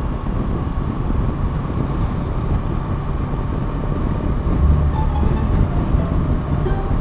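Steady wind rush and engine drone from a Kawasaki Versys 650's parallel-twin engine cruising at a constant highway speed, heard from the rider's position.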